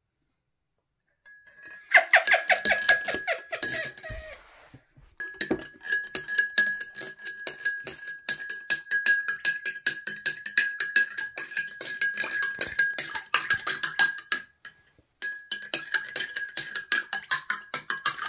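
A metal spoon stirring juice in a tall drinking glass, clinking against the glass in quick rapid runs so that the glass rings, with two short pauses. It starts about a second in.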